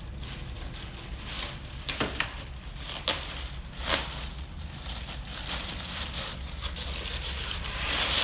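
Clear plastic bag rustling and crinkling as a wrapped sewing-machine extension table is handled and laid down, with a few sharp knocks about two, three and four seconds in.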